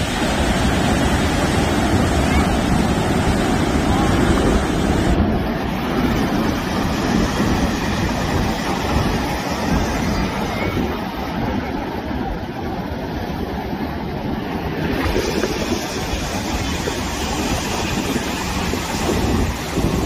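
Rough sea surf: heavy swell waves breaking and washing in continuously, with wind buffeting the microphone. The hissing top of the sound softens for about ten seconds in the middle.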